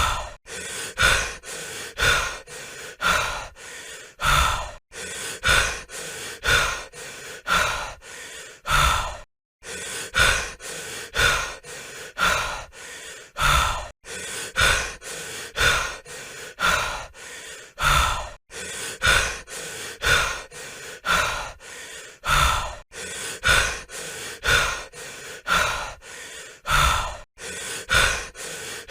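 A person breathing heavily, panting in and out in a steady rhythm of about one strong breath a second, with one short break about nine seconds in.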